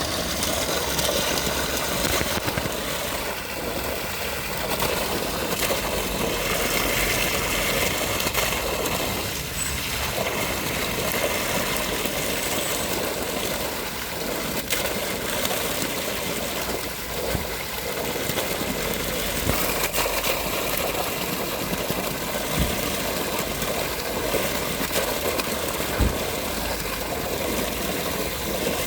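Water rushing steadily, a continuous even wash of noise, with two dull low thumps in the second half.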